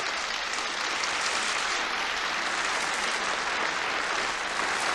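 Members of parliament applauding steadily, a sustained round of clapping that greets the announced vote result.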